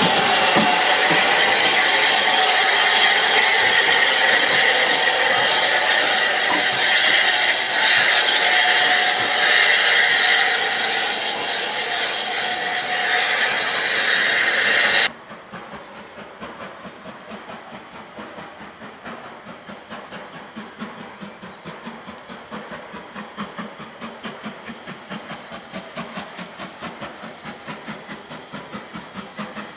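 Southern Railway Q class steam locomotive hissing steam loudly and steadily as it moves off, cut off abruptly about halfway through. Then a steam locomotive is heard from afar, its exhaust beats chuffing in a steady rhythm and growing a little louder as it approaches.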